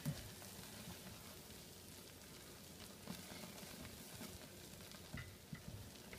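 Red silicone spatula stirring melting marshmallows and butter in a stainless steel pot on the heat: faint stirring and scraping with a few soft knocks against the pot.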